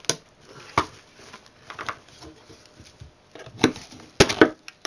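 Plastic case of a Linksys wireless router being pried at and handled, giving scattered sharp clicks and knocks. The loudest cluster of clacks comes near the end. The case has not yet snapped free.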